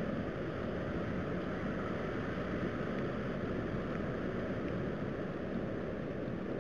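A steady, even rumbling noise with no distinct events or tones: the unexplained night-time rumble that the recording was made to capture.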